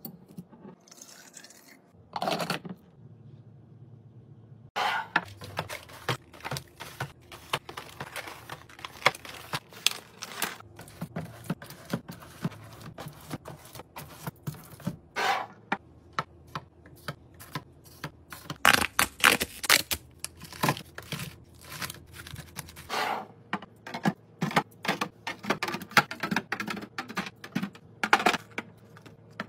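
Many quick clicks, taps and scrapes of food containers and packaging being handled and set down while restocking a fridge, sparse at first and then in dense runs, with a few louder clatters.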